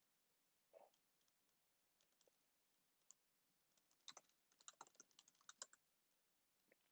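Faint computer keyboard typing: a few scattered keystrokes, then a quick run of key clicks about four seconds in, lasting about a second and a half.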